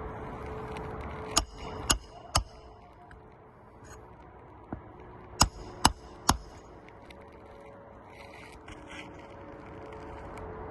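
Three sharp knocks about half a second apart, a pause of about three seconds, then three more knocks at the same pace, over a faint steady background.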